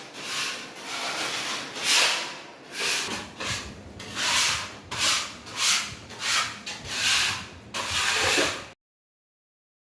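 Rhythmic rubbing strokes, a little more than one a second, cutting off suddenly near the end.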